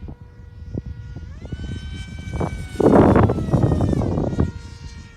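Electric RC speed plane's brushless motor and 7x6 propeller whining, rising in pitch as it speeds up. It makes a loud rushing pass about three seconds in, then the whine drops in pitch as it goes by.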